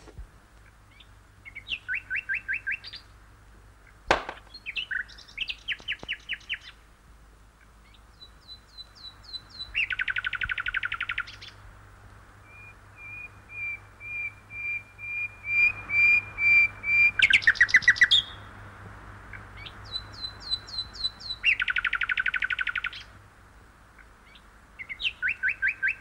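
Recorded birdsong played from a portable radio-cassette player hung under a birdhouse: short chirping trills repeat, with a steady run of single notes in the middle and the loudest trill about 17 seconds in. A single sharp click sounds about 4 seconds in.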